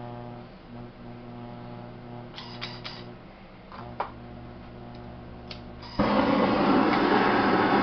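An electric potter's wheel motor hums steadily while a handheld propane torch is handled with a few clicks. About six seconds in, the torch lights with a sudden loud, steady hiss of flame, used to heat and firm up the clay wall.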